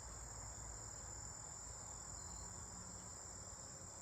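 Steady high-pitched trilling of insects, unbroken throughout, over a faint low rumble.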